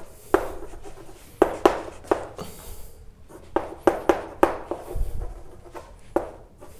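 Writing on a board or pad: a pen's short strokes and taps against the writing surface, about a dozen sharp, irregular clicks.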